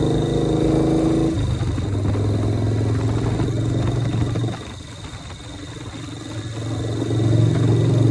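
Harley-Davidson Shovelhead V-twin engine of a chopper running on the road. Its note changes about a second in and drops off, quieter, around the middle as the throttle closes. It picks up again near the end.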